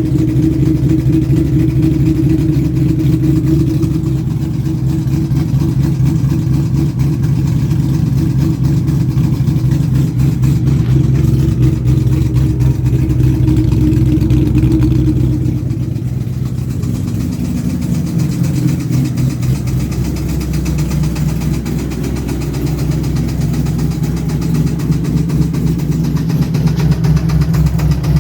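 A modified 4.6-litre V8 in a 2000 Ford Mustang GT idles steadily with a tick under the running, breathing through shorty headers and a Borla cat-back. The idle drops a little in level about halfway through. The owner suspects the tick comes from failed valve guides or the timing chain.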